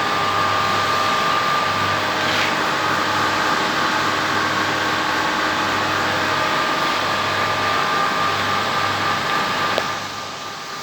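Metal lathe running steadily with a constant mechanical hum and whine. There is a single click shortly before the end, after which the level drops briefly.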